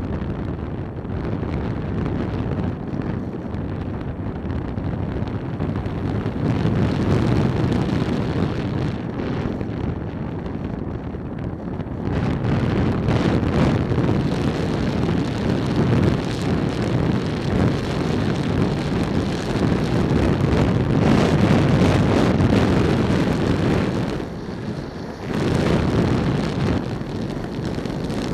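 Wind buffeting the microphone of a helmet camera while riding a scooter along a road, blended with the machine's engine and tyre noise. The rumble rises and falls, and drops briefly for about a second near the end.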